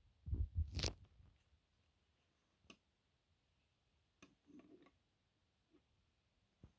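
Low handling thumps and a sharp click in the first second, then a few faint, scattered clicks and taps of small plastic Lego pieces being handled and set in place.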